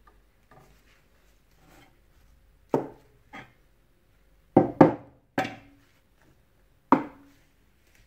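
Metal espresso portafilter knocked against a stainless steel knock box: six sharp knocks at irregular intervals, a pair close together in the middle, several with a short metallic ring.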